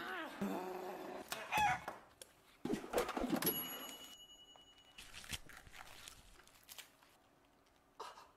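Rooster crowing and clucking, then a few sharp knocks, then a steady electronic beep of about a second and a half.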